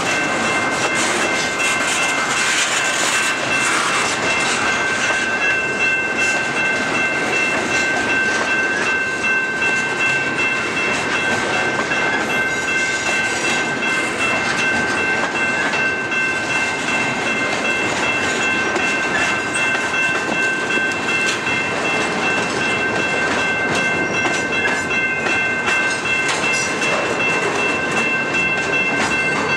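Double-stack intermodal container train rolling steadily past at close range, steel wheels clacking over the rail joints, with steady high-pitched tones held throughout.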